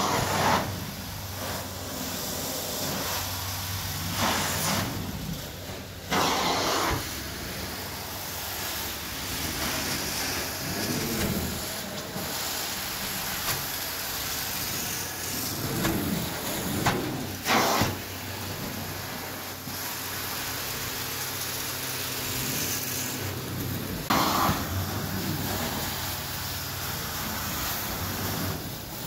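Hot water extraction carpet-cleaning wand being pulled across carpet: a steady rush of vacuum suction over the hum of the extraction machine, with brief louder surges every few seconds.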